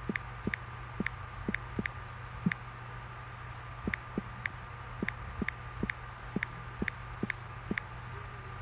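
Short light clicks, about two to three a second at uneven spacing, over a steady low hum and a faint steady high tone.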